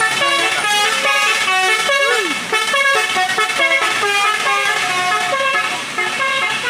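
An Indonesian tour bus's telolet horn playing a fast chiming tune: several horn tones sound together and jump to new notes a few times a second, without a break.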